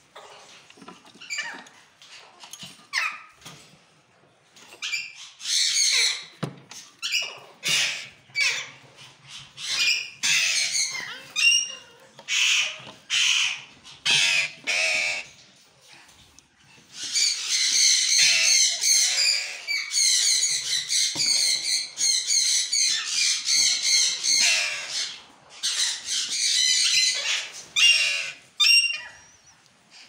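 Caged parakeets calling harshly again and again: short separate calls at first, then an almost unbroken run of calls for about eight seconds from just past the middle, then short calls again.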